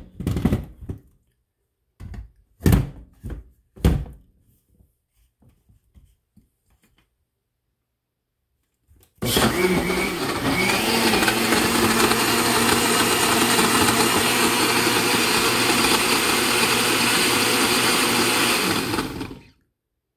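Countertop blender running on a jar of lemon pieces, mint leaves, sugar and water: it starts abruptly about nine seconds in, runs steadily for about ten seconds, and cuts off shortly before the end. Before it, a few knocks from handling the blender jar and lid.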